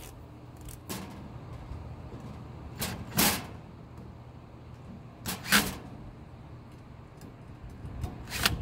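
Cordless drill/driver running in short bursts, four of them a couple of seconds apart, as it drives the screws tight on a rotisserie motor's mounting plate.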